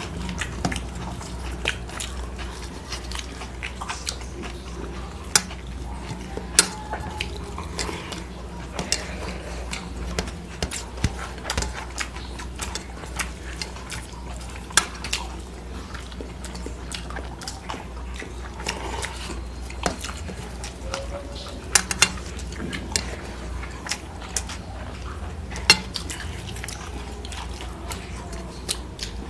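Hands mixing rice and curry on stainless steel plates: fingers scraping against the metal, with irregular sharp clicks and taps over a steady low hum.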